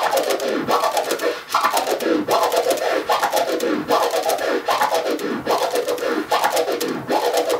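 Turntable scratching: a record sample pushed forward and pulled back in an even, repeating rhythm, each stroke chopped into several short sounds by crossfader clicks, a four-click orbit. The pitch rises and falls with each push and pull, about every three-quarters of a second.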